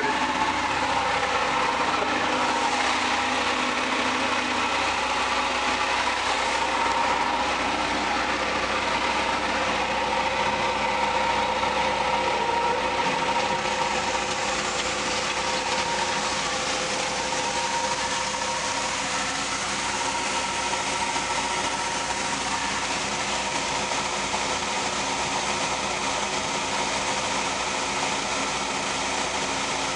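John Deere 3300 combine running steadily while its grain hopper is unloaded, a continuous machine hum.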